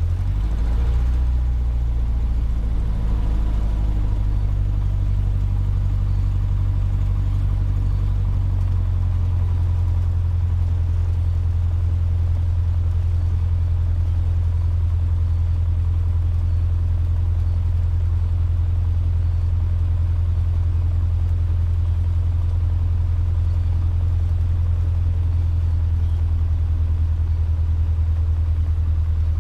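Cessna 150's four-cylinder Continental O-200 engine running at low ground power, a steady low drone. Its note shifts slightly over the first several seconds, then holds steady.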